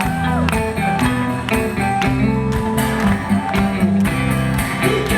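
Music with a steady beat and sustained instrumental notes.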